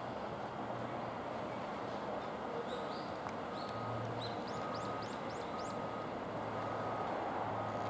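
A locomotive consist of a Chichibu Railway Deki 500 electric locomotive with a DE10 diesel in tow rolling slowly through a rail yard: a steady rumble with a low hum. From about three and a half seconds in, a short high electronic beep repeats about once a second, and a bird chirps several times in quick succession in the middle.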